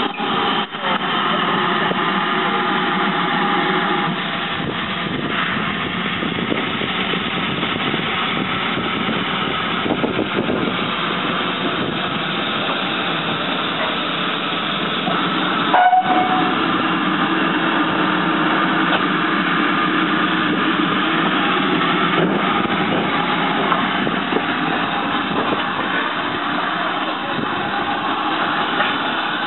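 Great Western Railway 0-6-2 tank steam locomotive 5643 moving slowly past at close range: a steady hissing running noise with no clear exhaust beat. A brief high note sounds about sixteen seconds in.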